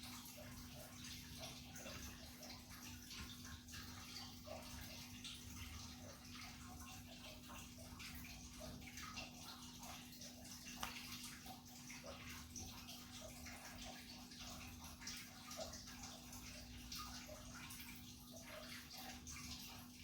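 Faint steady patter of rain with scattered light drips, over a low steady hum.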